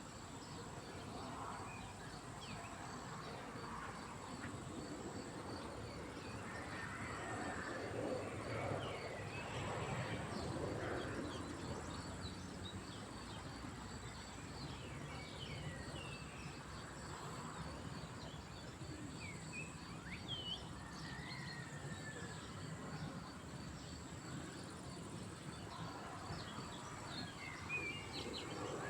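Lakeside ambience: small birds chirping and calling in short, scattered notes over a steady outdoor background noise, with a faint steady high-pitched insect trill.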